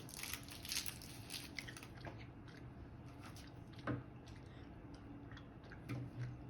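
Faint crinkling and small clicks of a wrapped caramel being handled, unwrapped and split: a busy patter of crinkles for about two seconds, then only a few single clicks.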